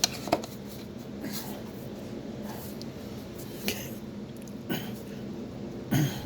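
Scattered metal clicks and knocks of a pry bar and hand tools working a steering shaft loose from its coupling, with a louder thump near the end, over a steady low hum.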